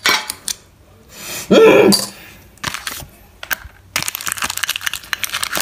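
Trading-card packaging being handled: a few clicks, then a dense run of crinkling and clicking in the last second and a half. A short vocal grunt or cough comes about a second and a half in.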